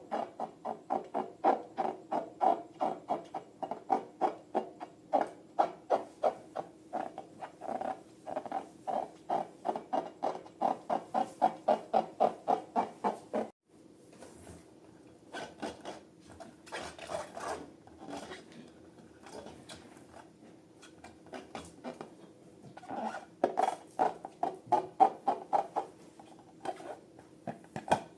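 Slime being worked by hand, squishing and clicking in a quick, steady rhythm of about three a second. It cuts off abruptly about halfway through, then goes on softer and less regular before picking up again near the end.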